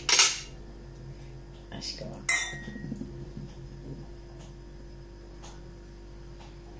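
Stemmed wine glasses clinking in a toast: a sharp clink at the start and another about two seconds in that rings briefly.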